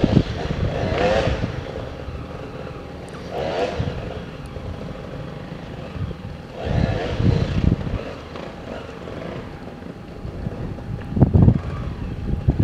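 Off-road race motorcycle engines revving hard in repeated short bursts, about every three seconds, with a loud low rumble about eleven seconds in.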